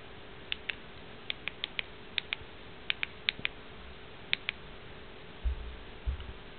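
Nokia 6110 Navigator's keypad buttons clicking as the navigation keys are pressed, about fourteen short clicks, many in quick pairs. Near the end there are two low thumps from the phone being handled.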